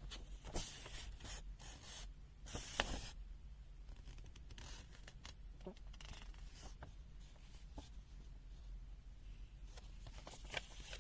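Paper rustling and rubbing in short bursts, with a few light clicks, as a printed user manual's pages are handled and turned. The loudest rustle comes about two and a half seconds in.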